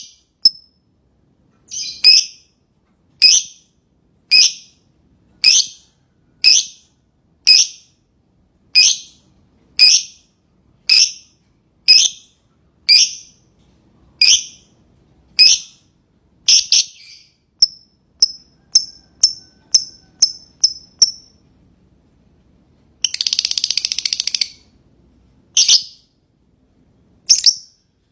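A lovebird calling in sharp, shrill chirps, about one a second, which turn shorter and quicker about two-thirds of the way in. Near the end comes a rapid chattering burst about a second and a half long, then a few more chirps.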